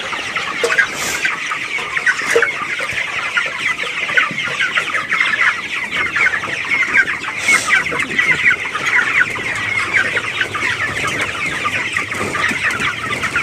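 A large flock of broiler chickens cheeping and clucking in a dense, continuous chorus. The birds are near market weight, about 1.3 to 1.4 kg.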